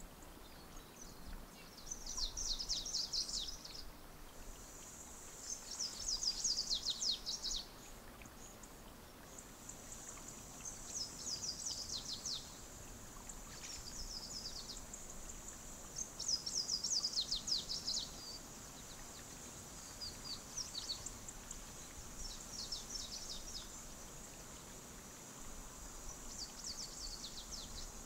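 A small songbird singing repeated short phrases of quick, high, falling notes, each phrase lasting a second or two and coming every few seconds, over a steady high-pitched hiss.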